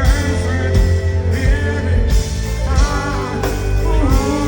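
Live dancehall reggae performance played loud through a concert sound system: a heavy, steady bass line with a singing voice that glides up and down over it a few times.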